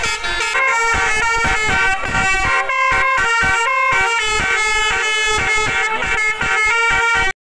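A bus's multi-tone 'telolet' air horn (basuri) playing a fast tune, loud, with its notes stepping from pitch to pitch several times a second. It cuts off abruptly near the end.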